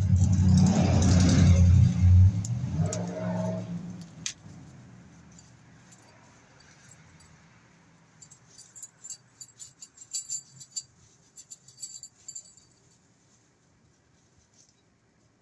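A motor vehicle passes close by, loudest in the first couple of seconds and fading away by about five seconds in. Later comes a run of crinkling and clicking as a small plastic hardware bag is handled.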